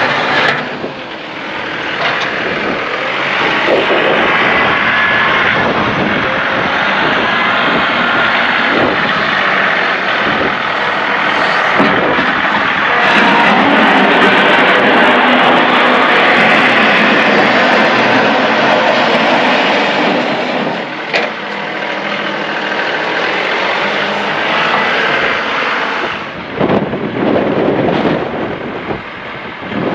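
John Deere 2038R compact tractor running under load while plowing snow, a loud steady engine drone mixed with a rushing noise, dipping briefly a couple of times.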